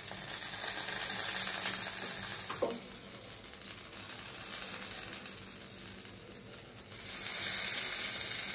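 Oil-brushed chicken pieces sizzling on an electric grill's wire rack, a steady hiss. The sizzle falls much quieter about three seconds in and comes back strong near the end.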